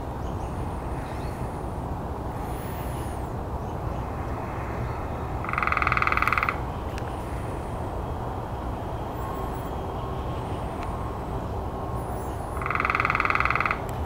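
Red-bellied woodpecker giving its rolling churr call twice, each about a second long, over a steady low rumble. Faint high chirps of small birds come in between the calls.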